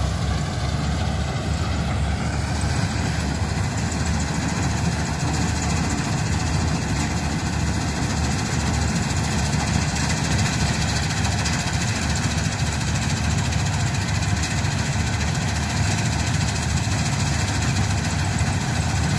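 Combine harvester running steadily as it cuts ripe paddy, a constant engine and threshing drone.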